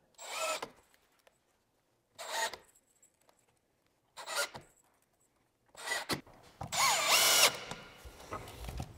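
Cordless drill-driver driving screws through black plastic plugs into a wooden 4x4 rail, in short separate runs: four brief bursts about two seconds apart, then a longer run near the end whose motor pitch rises and falls.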